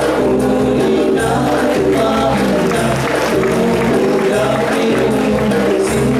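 Nasyid: a group of boys singing together into microphones, accompanied by hand-drum percussion.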